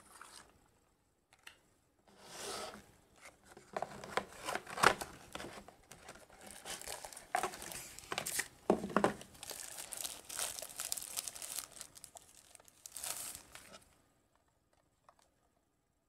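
Unboxing handling noise: a cardboard gift box being opened and its packaging pulled out, with a thin protective wrap rustling and tearing and sharp knocks of cardboard and the device. It goes in irregular bursts from about two seconds in and stops about two seconds before the end.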